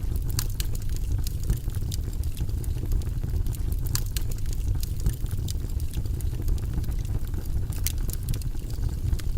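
Fireplace fire burning with a steady low rumble, scattered with sharp crackles and pops.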